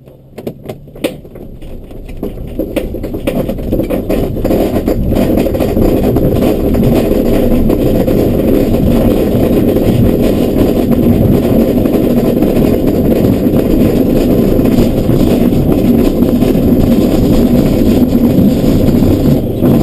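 An ASK-21 glider on its aerotow take-off roll across grass. A few knocks and rattles come first. Then the rumble of the wheel over the field and the rush of air build up over about five seconds into a loud, steady noise as it gathers speed.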